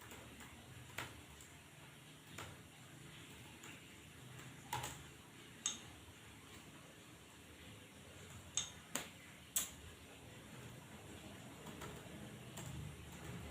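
Computer keyboard keys clicking as someone types, faint and uneven, with a few louder keystrokes in the middle.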